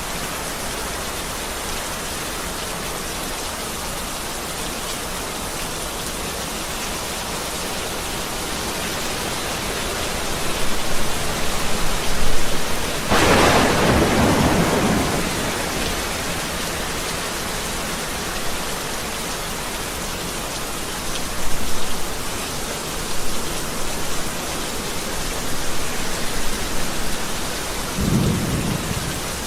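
Heavy rain pouring steadily, with thunder rumbling in: a loud rolling peal about halfway through and a few lighter rumbles near the end.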